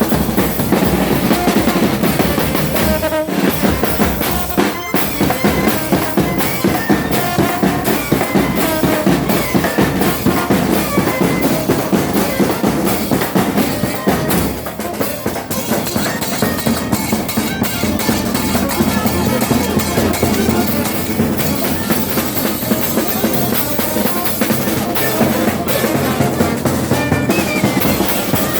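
Chirimía chocoana band playing a lively tune: drums, bass drum and snare, keep a busy steady beat under wind instruments.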